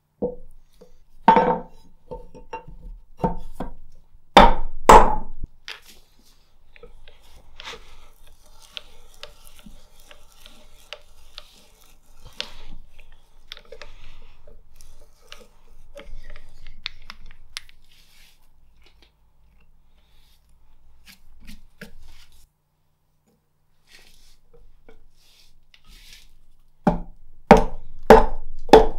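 A few heavy wooden knocks as the bowl blank is clamped to the bench with holdfasts. Then a long stretch of quieter crunching as a brace and auger bit bores into the blank. Near the end come repeated mallet blows, about two a second, driving a wooden mandrel into the bored hole.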